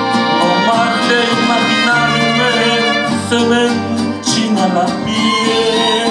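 Mariachi band playing live: violins and trumpets over strummed guitars.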